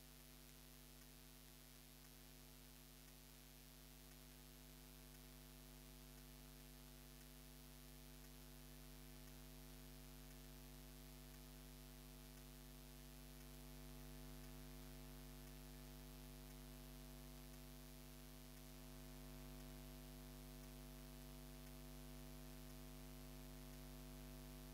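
Faint, steady electrical mains hum with a stack of even overtones over a light hiss; no music comes through.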